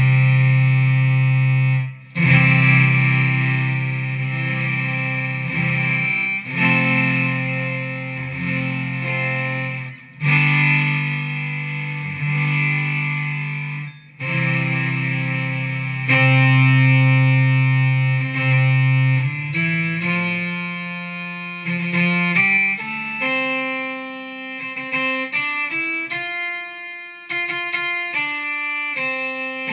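Electric guitar played through a BOSS SY-200 synthesizer pedal, giving thick synth tones. Held chords ring for a few seconds each and change about every four seconds, then in the last third it turns to a quicker run of shorter notes.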